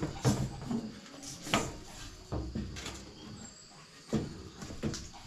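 A large kitchen knife chopping into a whole pumpkin on a stainless steel sink drainboard: a series of irregular sharp knocks as the blade is worked down through the hard rind.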